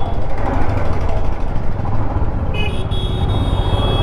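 Motorcycle engine running and road noise while riding in slow city traffic; a little past halfway a vehicle horn sounds and is held for over a second.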